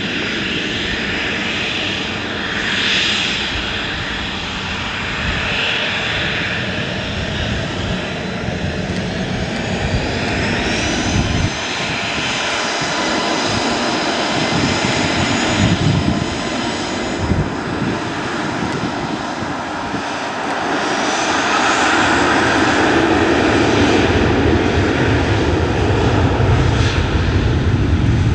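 Airliner engines running loud and steady at the airport, growing louder over the last third as the aircraft nears or powers up, with a faint gliding whine now and then.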